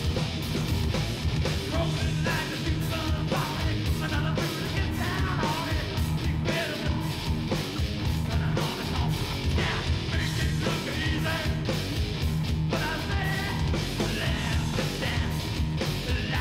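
Heavy metal band playing live: distorted electric guitar, bass guitar and drums keeping a steady beat, with yelled male vocals.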